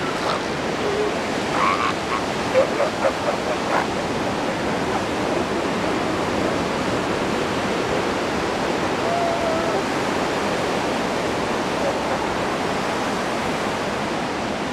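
Steady surf washing ashore, with a run of rapid pulses from a northern elephant seal bull's threat call about two seconds in, lasting a couple of seconds.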